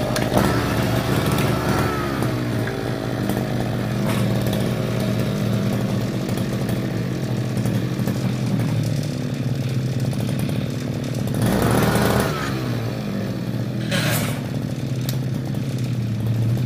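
Backpack brush cutter's small petrol engine running steadily at idle, which the mechanic judges a little low. Brief rushes of noise come about 12 and 14 seconds in.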